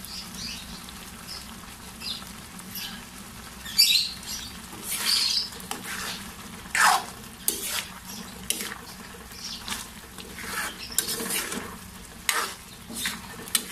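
Long-handled spoon stirring a thick pork menudo stew in a metal frying pan. It scrapes and drags through the sauce against the pan in irregular strokes, several of them louder.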